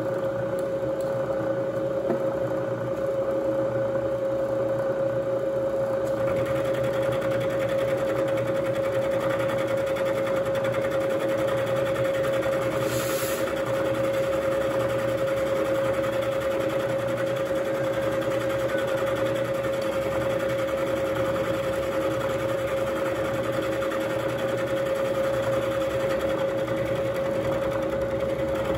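Bridgeport vertical milling machine's spindle running with a steady whine while an end mill cuts flats on the part. The cutting noise grows about six seconds in, with a brief hiss near the middle.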